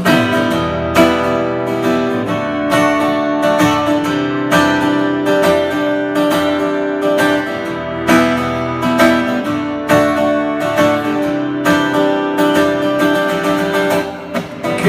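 Acoustic guitar strummed in a steady rhythm of chords, the instrumental opening of a song before the vocals come in.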